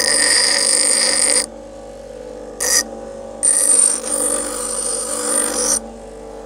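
Bench grinder running, its wheel grinding the edge of a steel file with a loud, high-pitched hiss in two spells of a second or two, plus a brief touch between them. In the gaps the motor's steady hum is heard alone.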